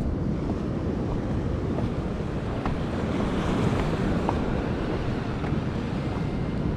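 Wind buffeting the microphone over the steady wash of sea surf against a rocky shore.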